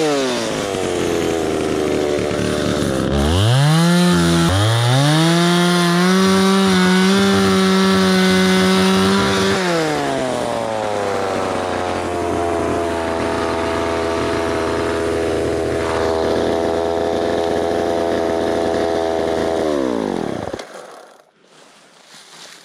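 Two-stroke gas chainsaw running loud. It revs in short bursts, then holds at high throttle for about five seconds and drops back to a steady idle. Near the end it gives one last blip and is switched off.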